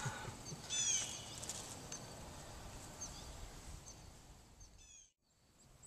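Open-air ambience with a faint steady rush of background noise, broken by a quick run of short, high bird chirps about a second in and another near the end.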